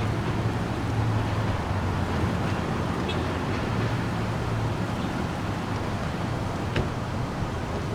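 Thunder rumbling on and slowly fading after a clap, with steady wind and rain noise from a severe thunderstorm.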